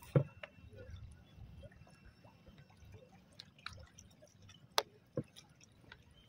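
Quiet dripping and lapping of sea water, with a few sharp clicks: one about a quarter second in and two close together near five seconds in.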